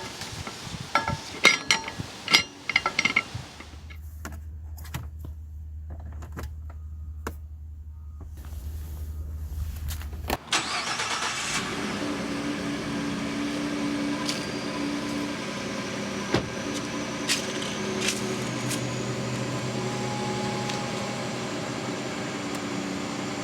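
Clicks and knocks of handling, then a low steady hum. About ten seconds in, a truck engine starts and runs steadily at idle.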